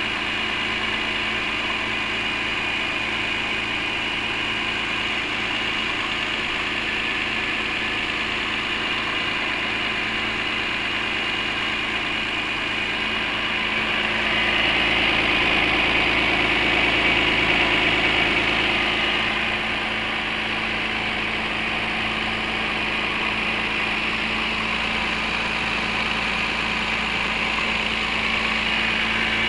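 Engine idling steadily, growing louder for a few seconds around the middle before settling back.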